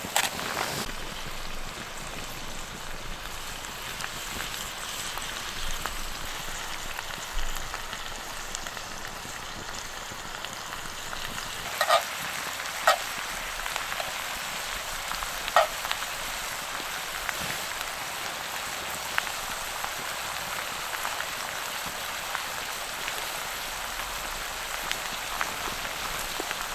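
Food frying in a pan over a campfire: a steady sizzle, with a few sharp pops about halfway through.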